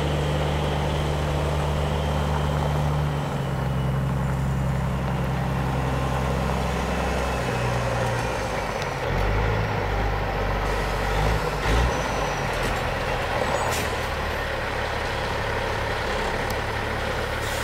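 Diesel engine of a 2007 Peterbilt 386 truck tractor running as the truck drives slowly around, its note stepping down and changing pitch several times. There are a couple of short air hisses later on.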